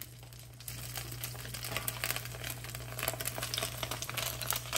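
Vegetable-and-vermicelli egg batter sizzling and crackling as it hits hot oil in a carbon steel wok, the crackle growing louder a little under a second in as more batter lands.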